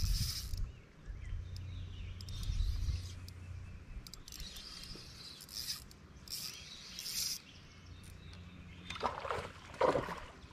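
Water lapping against a fishing boat's hull, with a low rumble in the first few seconds and several short hissing sounds.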